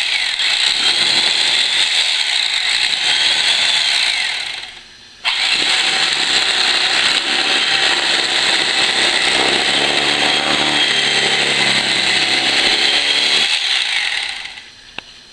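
Electric carving knife running with its serrated blades working in a serrated-knife sharpener, a loud steady machine noise. It cuts out about four and a half seconds in, starts again a moment later, and stops near the end, with a lower hum joining in during the second run.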